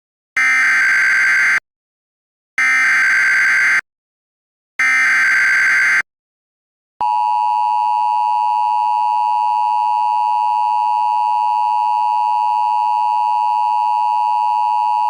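Emergency Alert System signal: three short data bursts of the SAME header, each about a second long with a second of silence between them. About seven seconds in comes the steady two-tone EAS attention signal, which holds unchanged.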